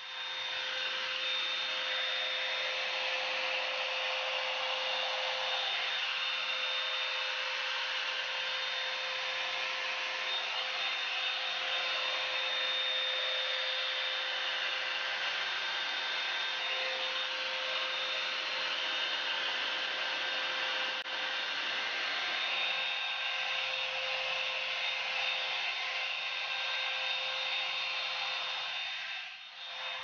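Revlon One-Step hot-air brush dryer running steadily: a rush of blown air with a steady motor whine, dipping briefly near the end.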